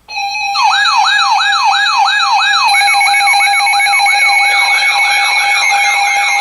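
Weather radio warning alarm: several electronic siren tones layered together, starting suddenly and running loud. A rising sweep repeats about three to four times a second over wavering warbles and steady tones, and another pulsing tone joins about two and a half seconds in.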